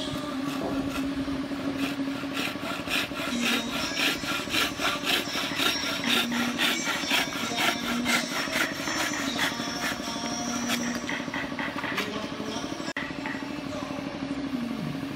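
Wooden frame saw (bow saw) cutting across a thin wooden strip with quick back-and-forth rasping strokes, about three a second. The strokes are strongest in the middle and stop a couple of seconds before the end.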